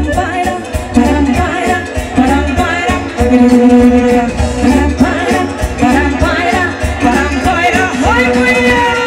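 Romanian lăutari folk band playing live, with singing over a steady dance beat and a strong bass line.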